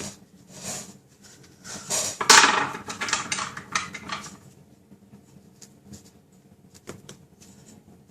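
Paper and cardstock being handled and pressed down by hand, a run of rustling and scraping with small clicks, loudest about two seconds in, then only a few faint taps.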